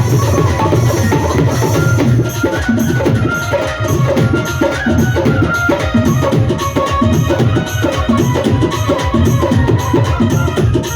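Music with drums, a steady percussive beat under held melody lines.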